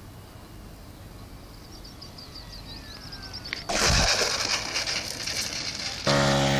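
A radio-controlled model plane's engine, faint and slowly falling in pitch at first, then loud and rushing as the plane passes low and close about halfway through. Near the end it cuts to the steady, even-pitched running of a 1/5-scale J3 Cub's O.S. 81 Alpha four-stroke glow engine.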